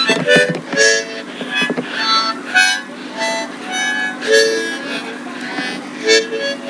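Harmonica blown in short, uneven bursts of notes and chords making a strange noise, with a steady low hum underneath.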